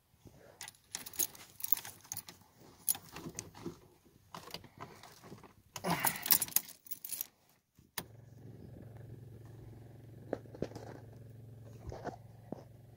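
Car keys jangling and rattling as they are handled and fitted into the ignition. About two thirds of the way in, a sharp click as the key is turned, and a steady low hum comes on, with a few light clicks over it.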